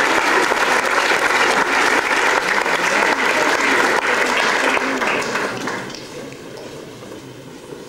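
Audience applauding, dying away about five to six seconds in.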